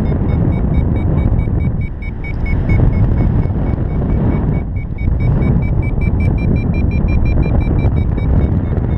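Wind rushing over the microphone in flight, with a paragliding variometer beeping in short high tones about four or five times a second, the sign of the glider climbing in lift. The beeps rise a little in pitch past the middle and break off briefly before that.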